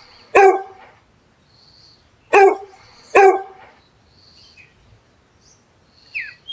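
Dog barking: three short, loud barks, one about half a second in and then a pair about a second apart.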